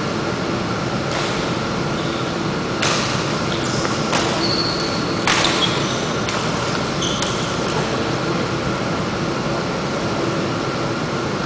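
Steady hum and rush of a badminton hall's fan ventilation, with about six sharp smacks of rackets striking the shuttlecock in a rally, roughly a second apart, ending about three quarters of the way through. A few short squeaks of shoes on the court floor come in the middle of the rally.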